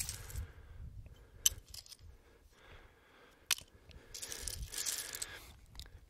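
Flat shale fragments clinking and scraping against each other as a hand shifts and turns them over in a loose pile, with two sharp clinks, one about one and a half seconds in and one about three and a half seconds in, and a longer rummaging scrape after that.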